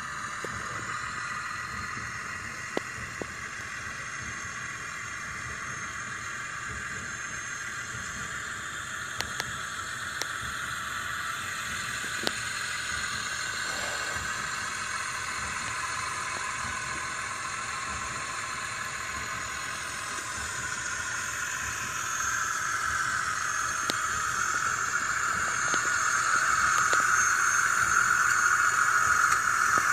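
A steady, engine-like running noise that grows louder over the last third, with a few faint clicks.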